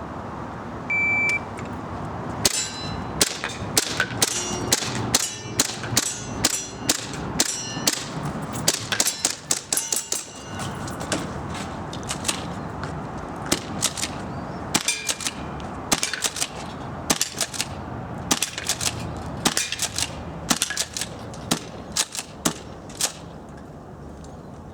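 A shot-timer beep about a second in, then airsoft guns firing in quick irregular strings of shots, many followed by a ringing ding as BBs strike metal targets. The shooting stops near the end.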